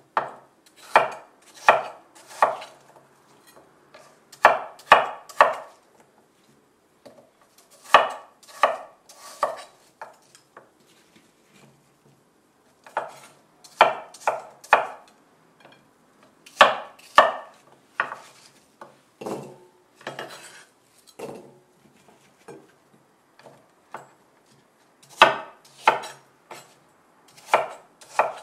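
Chef's knife dicing peeled apple wedges on an end-grain wooden cutting board: sharp knocks of the blade through the apple onto the board, in runs of three or four strokes about two a second, with pauses of a few seconds between runs.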